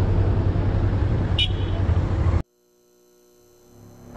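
Honda Transalp motorcycle riding along, its engine drone and road and wind noise steady, with a short high beep about a third of the way in. The sound cuts off abruptly a little past halfway, and faint steady music tones fade in near the end.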